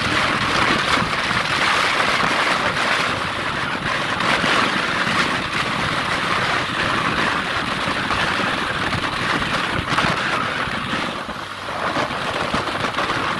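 Steady rush of wind and road noise from a motorbike riding at speed, the wind buffeting the microphone.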